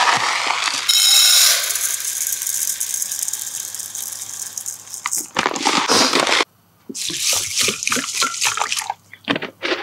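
Raw rice being washed before soaking: water pours steadily over the grains for about five seconds. The grains are then swished and rattled in the water in short bouts.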